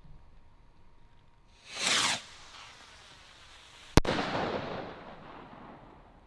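A 13g F2 firework rocket from Celtic Fireworks' Insanity pack: a short whoosh as it goes up, then about two seconds later a single sharp bang as it bursts, with a rush of noise fading away over the next second and a half.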